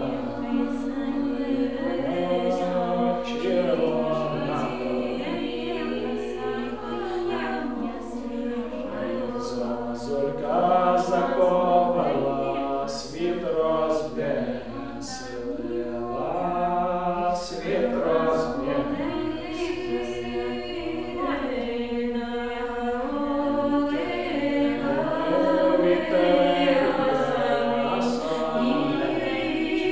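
Small mixed ensemble of women's and men's voices singing a traditional Ukrainian folk song a cappella in several-part harmony, with long held notes that move together.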